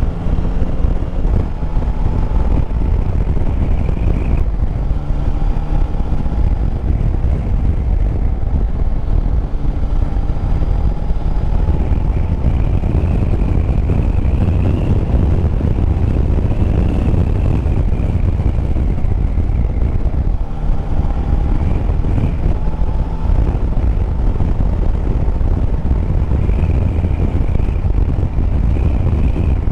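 Yamaha Tracer 9 GT's 890 cc three-cylinder engine running on the move, its note rising and falling, with two brief dips, under heavy wind rush on the microphone.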